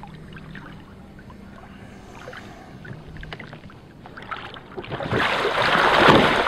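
Water lapping quietly with small splashes around a capsized Sea Eagle inflatable kayak. About five seconds in comes a loud rush of splashing as the kayak is flipped back upright and its hull slaps down into the water.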